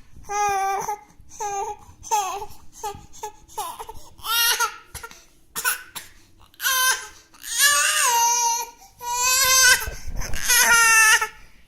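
Baby crying: short broken whimpers for the first few seconds, then longer high-pitched wails from about four seconds in.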